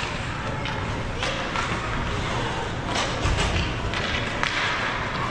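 Ice hockey game play in an arena: a scattering of sharp clacks of sticks and puck on the ice, over steady echoing rink noise with faint voices.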